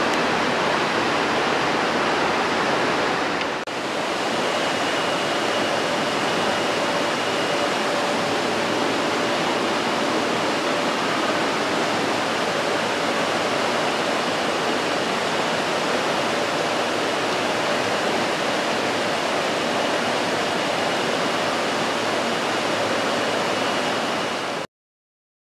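Mountain river rushing over rocks in rapids: a steady, even wash of water noise. It breaks briefly about three and a half seconds in and cuts off suddenly near the end.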